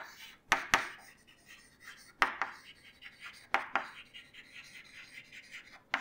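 Chalk writing on a chalkboard: a few sharp taps as the chalk strikes the board, with faint scratching strokes between them.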